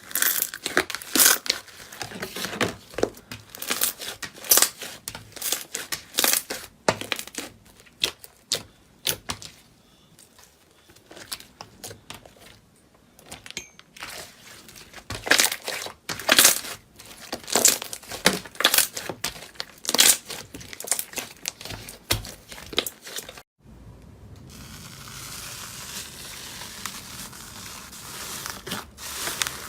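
Crisp crackling and crinkling sounds of crunchy ASMR material being squeezed and pulled apart, in quick irregular bursts. After a brief break about three quarters of the way through, a softer, steady hiss follows.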